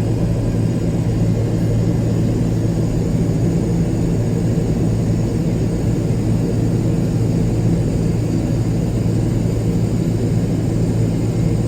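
Airliner cabin noise in flight: the jet engines and rushing air make a steady low drone with no change.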